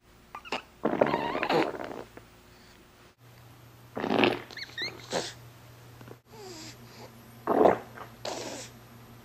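Baby passing gas: several short, noisy fart bursts. The longest lasts about a second, starting about a second in, and shorter ones come near four and seven and a half seconds.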